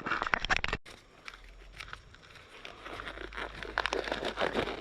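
Crinkly rustling and rubbing strokes of a cloth being worked over a motorcycle's bodywork. There is a brief dropout about a second in, after which a faint low hum runs under the rubbing.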